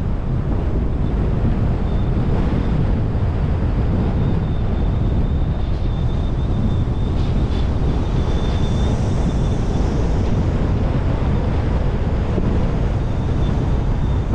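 A car driving steadily, with wind buffeting the microphone over road and engine noise. A faint, thin high-pitched tone comes and goes.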